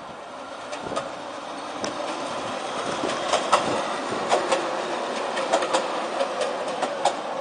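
Bombardier TVR guided rubber-tyred tram passing close by, its running noise growing louder about two seconds in. Over it comes an irregular run of sharp clicks and knocks from the tram's running gear on its central guide rail.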